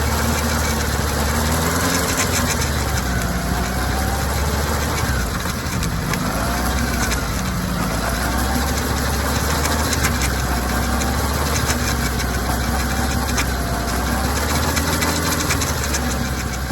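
Kawasaki ZR-7S motorcycle running steadily, with a steady low hum and a faint whine that rises and falls every second or two over the engine note. The bike is being checked for an abnormal chain noise.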